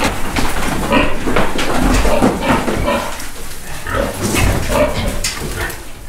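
Piglets squealing in short, irregular cries as they are caught and held up by the rear legs.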